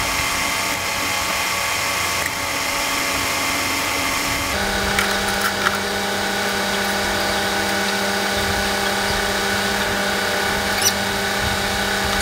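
Steady mechanical hum of a running motor, made of several fixed tones that shift to a new pitch pattern about four and a half seconds in. A few light metallic clicks of hand tools come a little after that and again near the end.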